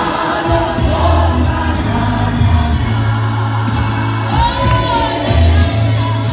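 Gospel singing by a group of voices over instrumental accompaniment, with held low bass notes and a light, regular beat.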